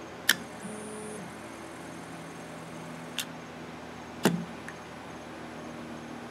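Stepper motor driven by a freshly repaired stepper driver, making short moves: each run is a steady low hum of a few held tones, with a faint high whine in the first one, showing the driver is working. Three sharp clicks fall between the runs, the loudest a little past the middle.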